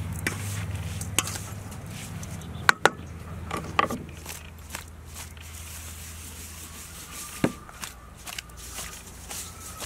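Pomelo salad being tossed in a stainless steel mixing bowl: the wet fruit pulp rubbing and sliding around the bowl. A few sharp clicks and knocks of the bowl and spoon come through, the loudest pair about three seconds in.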